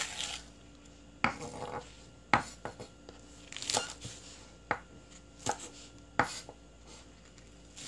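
Chef's knife cutting green onions on a wooden cutting board: separate sharp knocks of the blade striking the board, roughly one a second at an uneven pace.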